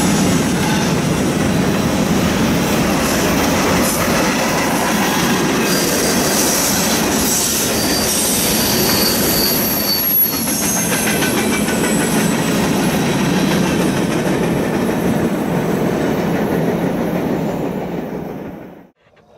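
Freight cars of a passing mixed freight train rolling by: a steady wheel-on-rail rumble with thin, high-pitched wheel squeals over it. It fades out near the end.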